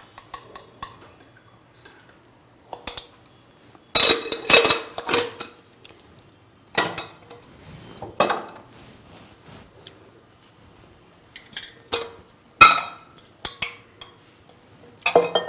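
Intermittent metallic clinks and knocks of steel kitchenware being handled: a small spoon, lidded steel canisters and a stainless steel saucepan. A cluster of clinks comes about four seconds in, and one sharp clink stands out late on.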